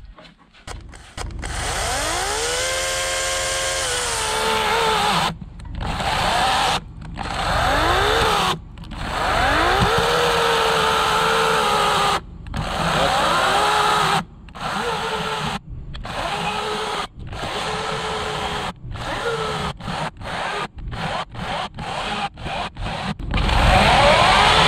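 Electric chainsaw cutting a log, its motor spinning up with a rising whine and running under load. In the second half it stops and restarts many times in quick succession: the battery saw keeps cutting out on its user.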